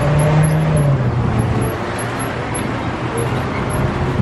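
Parking-lot tram in motion, heard from aboard: a steady engine drone over road and running noise, the engine note dropping a little about a second in.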